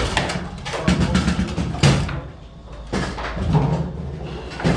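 Foosball table in play: rapid clacks of the plastic men striking the ball and of the rods knocking against the table, with one sharp, loud crack nearly two seconds in.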